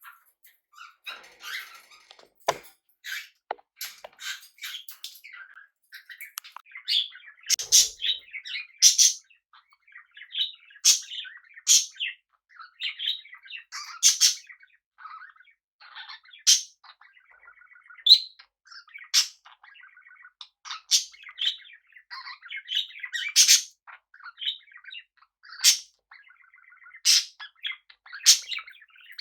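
Pet parrots chirping and chattering: a soft, buzzy warble runs underneath, with sharp, louder calls every second or two.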